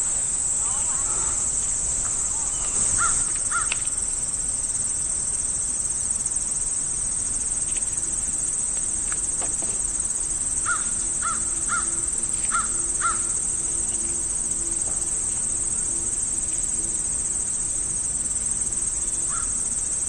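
Steady high-pitched chorus of insects in a late-summer meadow. A bird gives short calls over it: twice a few seconds in, then a run of about five in the middle, then once near the end. A faint low hum runs through the middle.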